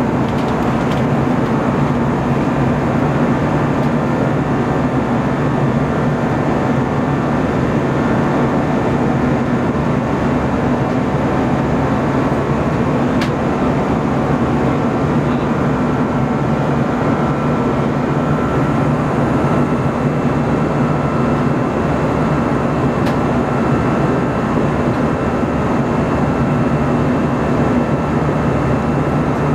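Steady cabin roar of an Airbus A321's jet engines and rushing air during the climb after takeoff, heard inside the cabin by the wing. A faint steady whine comes in about halfway.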